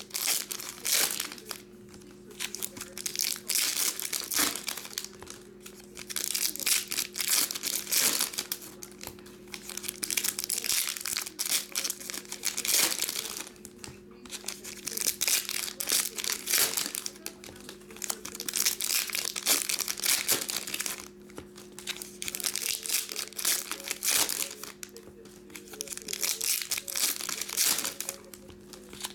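Foil baseball card pack wrappers being torn open and crinkled by hand, in repeated bouts every couple of seconds, over a steady low hum.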